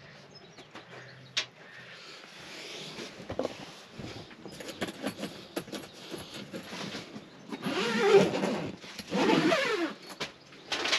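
German Shepherd puppy whining in a soft mesh pet carrier: two long, wavering cries in the last few seconds, with rustling and small knocks of the carrier before them.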